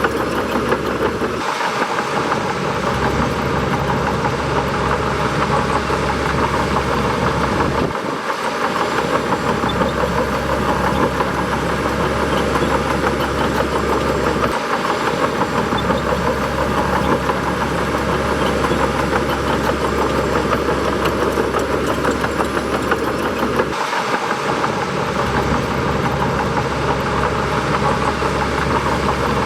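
Bulldozer's diesel engine running steadily, its low rumble dropping out briefly four times.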